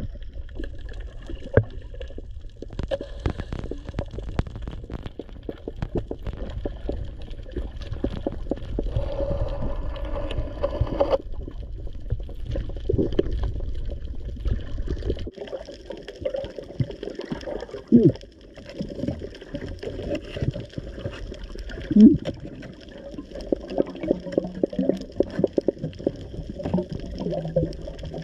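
Water gurgling and sloshing, with many small scattered clicks and a low rumble that drops away about halfway through.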